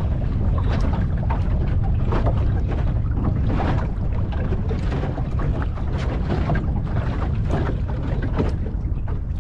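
Wind buffeting the microphone aboard a small fishing boat, a steady low rumble, with irregular short slaps of water against the hull.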